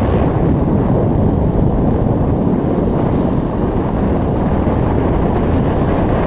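Wind buffeting the microphone outdoors: a loud, steady, low rumble that flutters without a break.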